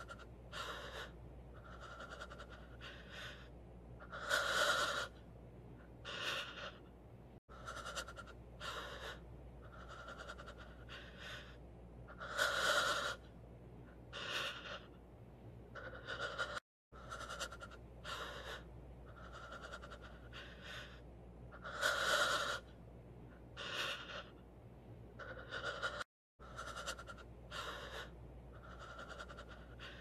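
A person's heavy, gasping breathing: several short panting breaths, then one louder, longer gasp. The same breathing sound starts over about every nine seconds, each time after a brief cut to silence.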